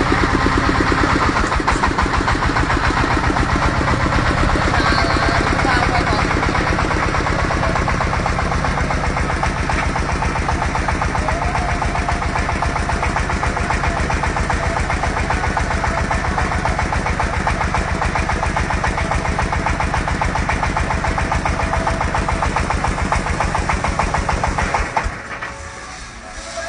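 Engine of an industrial drilling machine running steadily with a rapid, even firing beat. Its level falls away sharply near the end.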